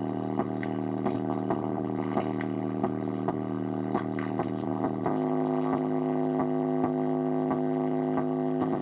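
Bass-heavy song played from an iPhone through a theater tower speaker driven by a small 4.5-volt battery amplifier switched on: long held bass notes over a steady beat, the bass note changing about five seconds in.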